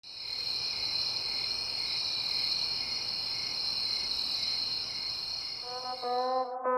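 Crickets chirping in a steady, continuous high trill over a low background hum. Near the end the trill cuts off as held brass notes come in.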